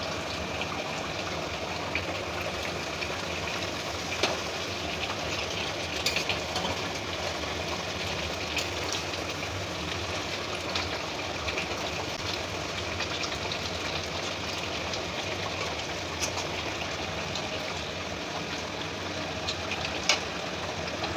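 Chicken and potato curry boiling hard in a wide pan: a steady bubbling hiss with scattered sharp pops and spits as bubbles burst.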